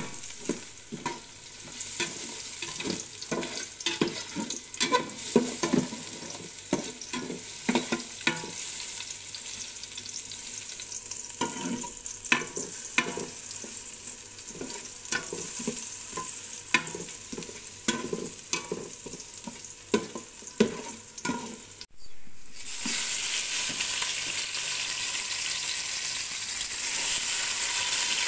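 Sliced garlic sizzling in hot oil in an aluminium pot, with a spatula scraping and knocking against the pot many times as it is stirred. About three-quarters of the way in, after a brief break, a louder, steadier sizzle follows without the knocks, as chicken pieces fry in the pot.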